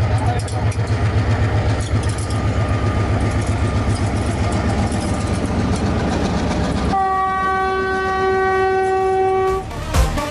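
Diesel locomotive hauling tank wagons rolls past with a dense rumble of engine and wheels, then sounds its horn about seven seconds in, one steady blast lasting about two and a half seconds.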